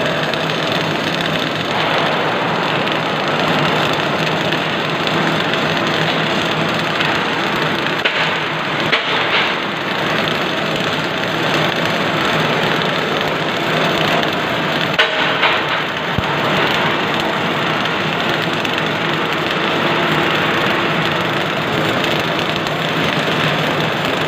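CO2 gas-shielded (MAG) welding arc crackling steadily as a bead is run, with a few brief louder flares partway through.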